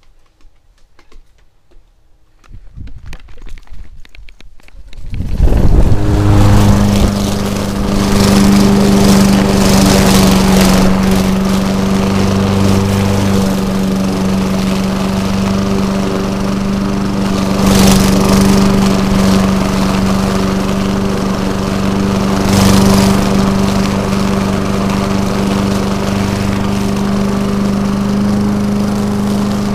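Walk-behind lawn mower running steadily with an even, unchanging hum, coming in suddenly about five seconds in after a few seconds of faint rustling.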